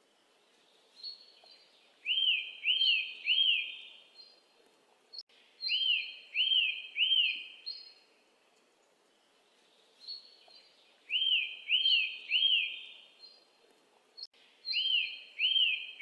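A bird calling in short phrases of three quick arched notes, each rising and falling. The phrases repeat four times, a few seconds apart, over faint background hiss.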